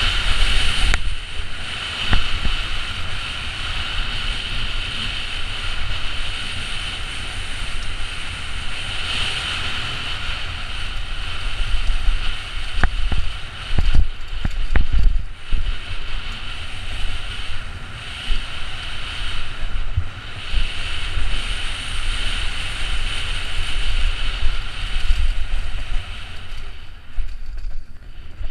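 Wind rushing over a helmet-mounted camera with the rumble and rattle of a downhill mountain bike running fast over a dirt trail. There are a few sharp knocks from bumps near the middle, and a dip as the rider slows near the end.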